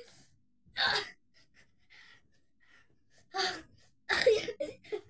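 A child gasping and panting with exertion while jumping, in short breathy bursts: one about a second in, then two close together near the end, the last one longest.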